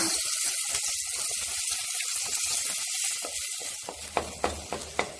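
Tomato sauce sizzling in hot olive oil and onions in a stainless steel pot, the hiss slowly dying down. Near the end a wooden spoon stirs it, with a few light knocks against the pot.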